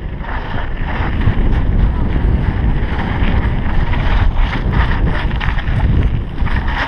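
Wind buffeting a helmet-mounted GoPro Hero3 while a downhill mountain bike rolls down a paved and cobbled descent, with tyre noise and scattered short rattles over the surface.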